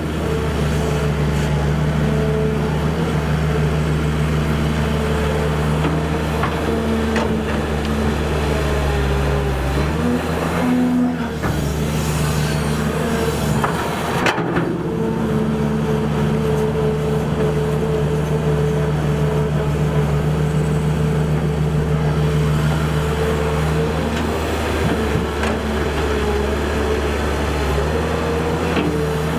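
Excavator's diesel engine running steadily, its note shifting for a few seconds about a third of the way in before settling back, with a few knocks.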